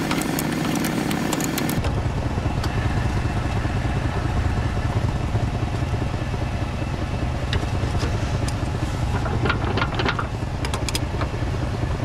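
Ford F-250's 6.2-litre V8 engine idling steadily. Near the end come a few light metal clicks of a wrench on a plow hydraulic hose fitting.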